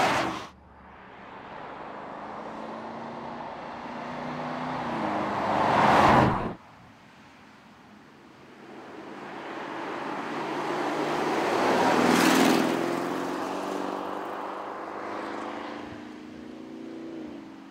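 A 2021 Porsche Cayenne GTS's twin-turbo V8 driving past several times. Each pass swells to a peak and then cuts off or fades. The louder passes come about six and twelve seconds in, with the engine pitch climbing as it pulls away after the second.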